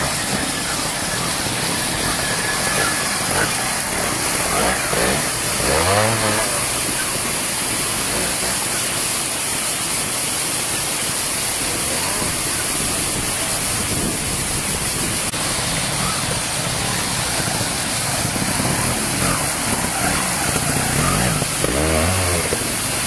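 Classic pre-1965 trials motorcycles picking their way up a rocky stream bed, engines blipped and revved, with a sharp rise in revs about six seconds in and again near the end. Rushing stream water runs underneath.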